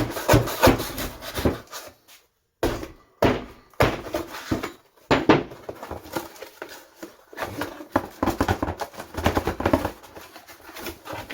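Cardboard shipping box being opened and handled, with irregular rustling, knocks and thuds, and a short silent break about two seconds in.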